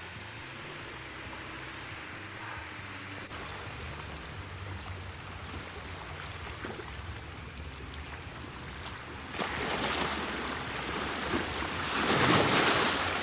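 Sea waves washing against a rocky shore. There is a steady wash of surf, then two louder surges, one about two-thirds of the way in and a stronger one near the end.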